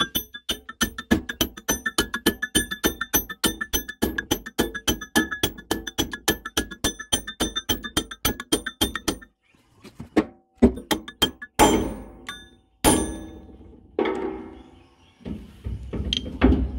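A metal plate being hammered down onto the pinion shaft of an excavator swing reduction gearbox until it seats. Quick, even taps with a metallic ring run for about nine seconds, then stop, and a few heavier, irregular blows follow.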